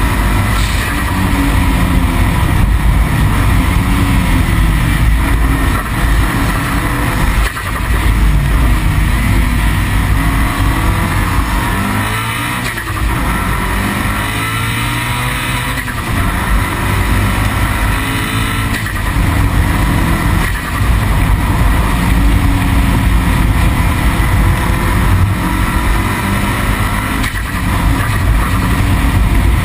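A car engine revving hard at speed, its pitch repeatedly climbing and falling with gear changes and lifts off the throttle, over a heavy steady road rumble. The biggest lift comes about twelve seconds in, followed by a drop in pitch and a climb back up.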